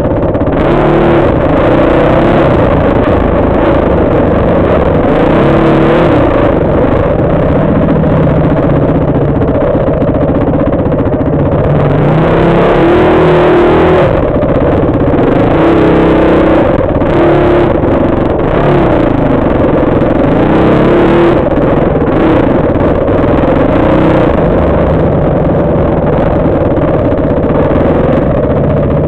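Dirt bike engine running while riding a rough trail, revs rising and falling with the throttle.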